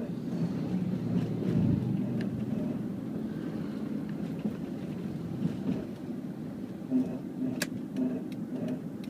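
Mitsubishi Pajero (2006, CK body) with a low wobbling hum that pulses about twice a second over a steady rumble, an unidentified noise the owner is trying to trace. A short sharp click stands out near the end.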